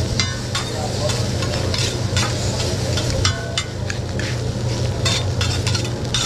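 Egg fried rice sizzling on a steel hibachi griddle while two metal spatulas repeatedly scrape and chop through it, clacking against the flat top. A steady low hum runs underneath.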